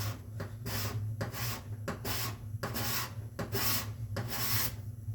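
Card scraper being pushed in short strokes across a hardwood board, shaving down cured epoxy filled into cracks and knot holes: about seven scraping strokes in five seconds, each a short hiss that stops near the end.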